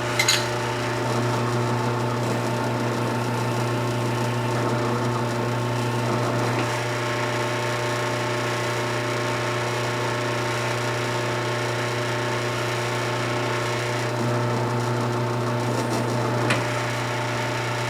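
A drill press motor runs steadily with a countersink bit, countersinking the rivet holes in G10 knife handle scales. There are a few brief faint clicks.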